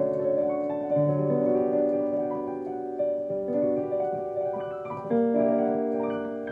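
GEM Promega 3 digital piano playing a slow improvisation: chords struck every second or two and left to ring and fade.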